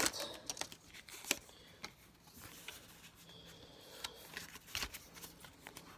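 Pokémon trading cards from a freshly opened booster pack being handled and slid against one another in the hands: faint, scattered light clicks and rustles.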